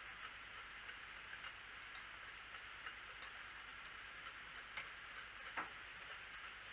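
Faint scraping and light ticking of a utensil stirring thick soap paste in a ceramic slow-cooker crock, over a steady faint hiss, with a sharper click about five and a half seconds in.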